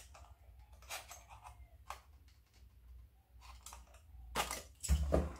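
A small cardboard puzzle box being handled and its plastic wrap slit with a box cutter: scattered light clicks and scrapes, busier and louder about four seconds in.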